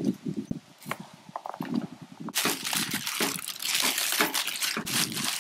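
Paper wrapping crinkling and rustling as food is unwrapped by hand. It is continuous from a little under halfway through, after a few light knocks and rustles.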